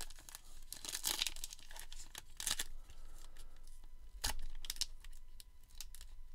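Plastic trading-card pack wrapper crinkling and being pulled at as someone struggles to tear it open, with irregular crackles and one sharper, louder crackle a little past four seconds in.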